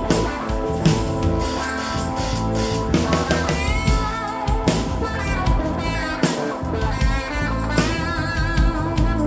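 Live rock band of electric guitar, keyboards, bass and drums playing an instrumental break, the drums keeping a steady beat. From about three seconds in, a lead line plays over it with wavering, bending notes.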